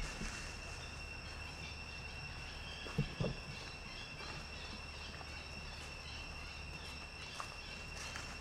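Insects trilling steadily at a high pitch, with two brief knocks about three seconds in.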